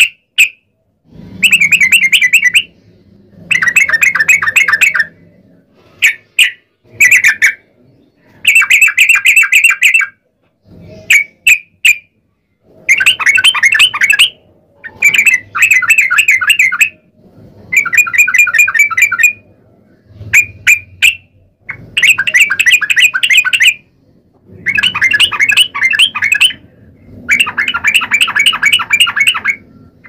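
Yellow-vented bulbul (trucukan) singing its fast rolling chatter, called 'ropel': repeated bursts of rapid notes, each up to about two seconds long, separated by short pauses.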